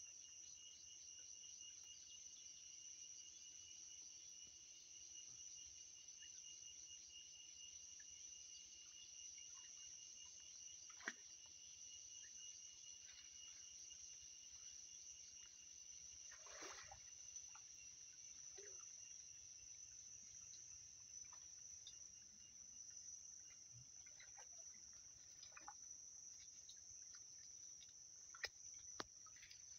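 Faint, steady high-pitched chorus of insects, with a few scattered soft clicks and knocks.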